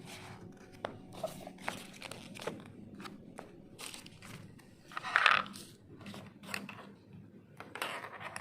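Packaging being handled: rustling and crinkling with small scattered clicks and taps, and a louder rustle about five seconds in.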